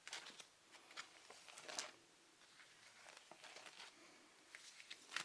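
Comic books being handled and leafed through: soft, irregular paper rustles and light taps, a little louder about a second and a half in and near the end.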